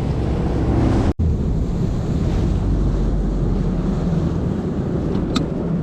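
Bass boat outboard motor running at speed across the water, a steady low drone under heavy wind buffeting on the microphone and the rush of the hull on the water. The sound drops out for an instant about a second in.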